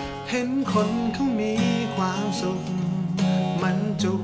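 Live acoustic pop song: acoustic guitars strummed and picked while a male lead singer sings the melody.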